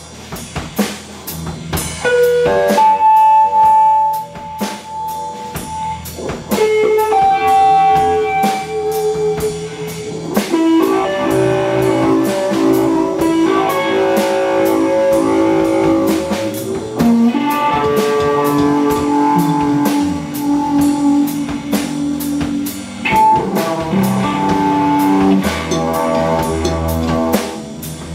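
Live rock band playing an instrumental passage: an electric guitar holds long, sustained lead notes that shift pitch every second or two, over a drum kit played steadily underneath.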